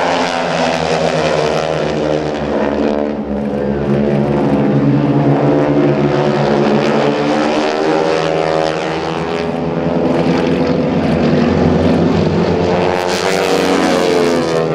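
Four North American T-6 Texans flying in close formation, their 600-horsepower nine-cylinder Pratt & Whitney R-1340 radial engines and propellers running together overhead. The engines' pitches slide up and down and cross one another as the formation rolls and passes, and the propeller rasp grows brighter near the end.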